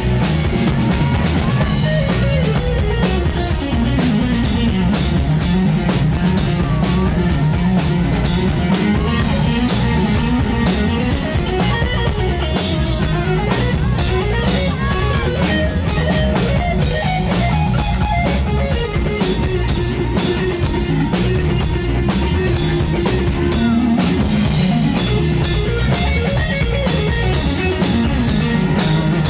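Live rock band playing: a Stratocaster-style electric guitar takes an instrumental lead with bent, gliding notes over a steady drum kit beat.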